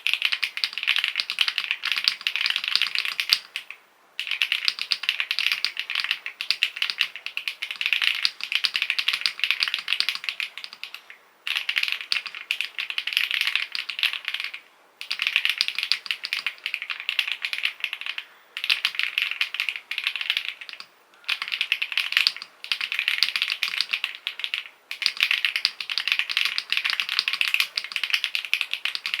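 Fast typing on a custom mechanical keyboard with creamy switches: rapid, dense keystroke clicks in runs of a few seconds, broken by brief pauses about every three or four seconds.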